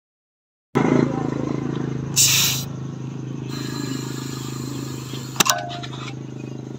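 Air compressor running steadily while a motorcycle tyre that is low on air is inflated through a brass air chuck on the valve. A short hiss of air comes about two seconds in, and a sharp metallic click about five seconds in as the chuck comes off.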